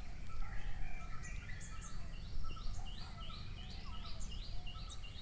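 Outdoor ambience: a steady high-pitched insect drone, and a bird repeating short falling chirps about twice a second from about a second and a half in, over a low background rumble.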